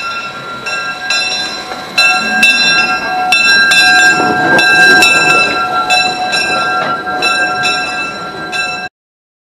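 Steam locomotive's bell ringing over and over, each stroke ringing on into the next, over the noise of the engine and cars rolling past. The sound cuts off suddenly near the end.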